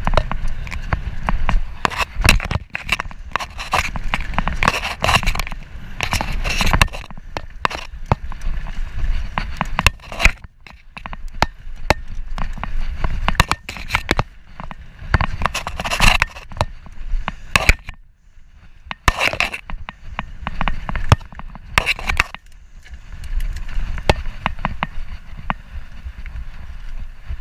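Mountain bike rattling and clicking over a bumpy dirt singletrack, with a steady low rumble of tyres and wind under dense, irregular knocks. It goes briefly smoother and quieter about two-thirds of the way through.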